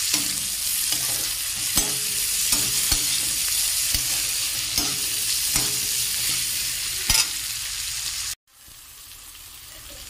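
Chopped onions, tomatoes and garlic frying in oil in a metal kadhai, sizzling steadily while a metal spatula stirs them and clicks and scrapes against the pan about once a second. A little past eight seconds in, the sound cuts off suddenly and comes back quieter.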